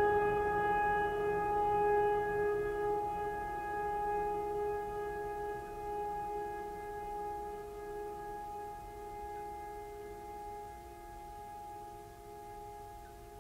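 Background music: one sustained, steady chord that slowly fades away.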